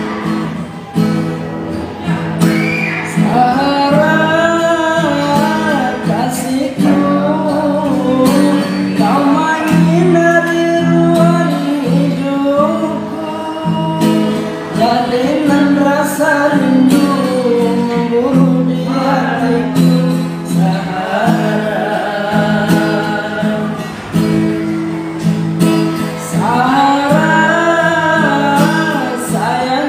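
A young man singing in phrases to his own acoustic guitar accompaniment, the guitar's chords sounding steadily underneath and between the lines.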